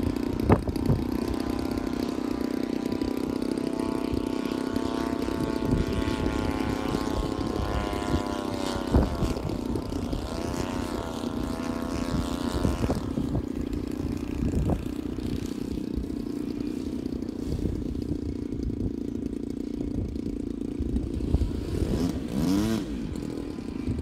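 Gasoline engine of a large radio-controlled model airplane in flight, its pitch wavering and sweeping up and down as the plane passes, most clearly about halfway through. Wind rumbles on the microphone.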